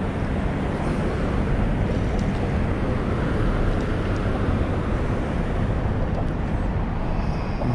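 Steady low outdoor rumble with no distinct events, holding an even level throughout.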